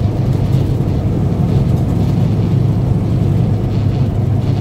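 Steady low rumble of a semi truck's engine and road noise inside the cab while it drives.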